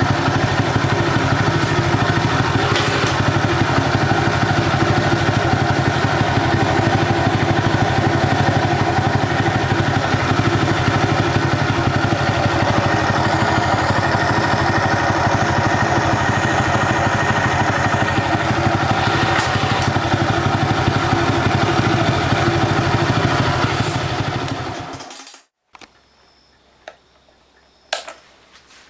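Honda Cub's small single-cylinder four-stroke engine running at a steady speed, cutting off abruptly about 25 seconds in. It is followed by a quiet background with a few faint clicks.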